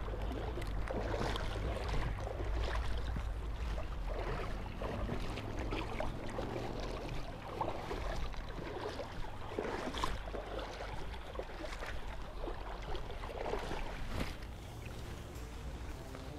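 Shallow river current splashing and swishing irregularly around a wading angler's legs, over a low steady rumble.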